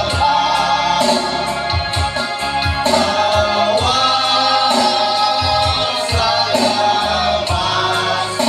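A group of men singing a hymn together into microphones, amplified through a sound system, over an instrumental backing with a steady beat.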